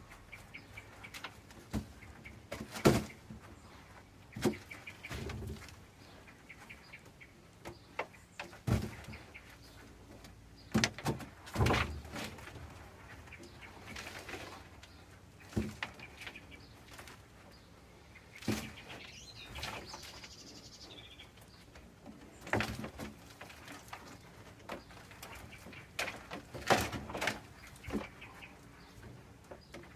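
Intermittent knocks and rustles of potatoes and compost being handled as the potatoes are gathered, with birds chirping in the background.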